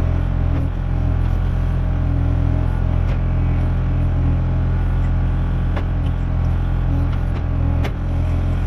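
Kubota KX040 mini excavator's diesel engine running steadily under hydraulic load as the boom and bucket work, with a few sharp knocks as the bucket grubs through dirt and roots.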